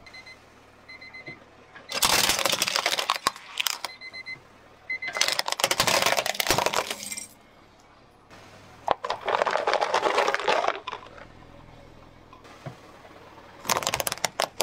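Small plastic toys and other objects crushed one after another under a car tyre: four bursts of crunching and crackling, each one to two seconds long, about three to four seconds apart.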